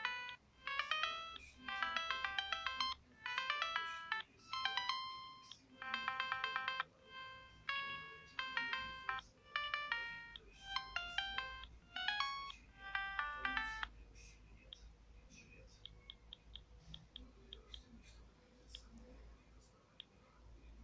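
Ringtone melody from a Siemens S55 mobile phone, playing through its small built-in speaker in short, quick phrases of electronic notes. It stops abruptly about two-thirds of the way through and is followed by a run of soft clicks.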